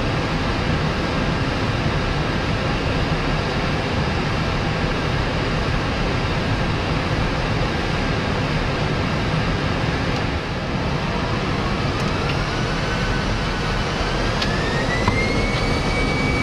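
Airbus A318 engines and airflow heard from inside the cockpit: a steady rumble and hiss. About two-thirds of the way in, a whine rises in two steps and then holds steady: the engines spooling up toward takeoff power.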